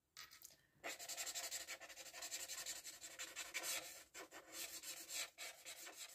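Felt-tip marker scribbling quickly back and forth on paper while colouring in a shape. It is a rapid run of rubbing strokes that starts in earnest about a second in.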